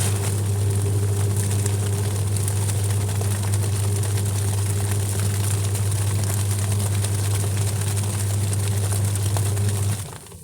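Electric appliance motor running with a steady hum and an even hiss, switched on just before and cutting off abruptly near the end.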